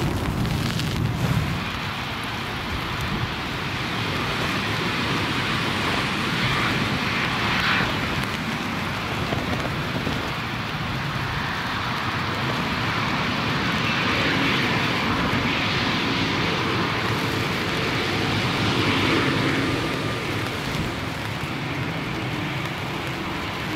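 Jet engines of an aircraft at takeoff power, a steady rushing noise that swells and eases, with gusty wind rumbling on the microphone.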